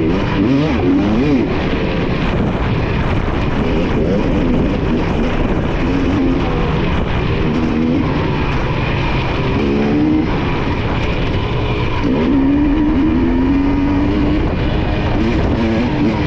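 Off-road dirt bike engine revving up and down as it is ridden hard through an enduro test section. Its pitch rises and falls with the throttle over a constant rough noise.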